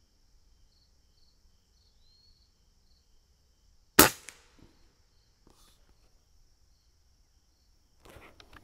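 A single shot from a .22 Umarex Gauntlet PCP air rifle: one sharp crack about four seconds in that dies away quickly.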